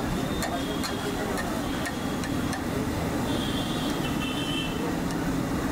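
Mutton in gravy sizzling on a large iron tawa over a gas burner, with a metal spatula clicking against the pan about twice a second, over steady street traffic noise.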